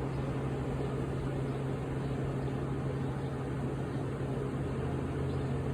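Steady low machine hum with a constant droning tone and an even hiss over it.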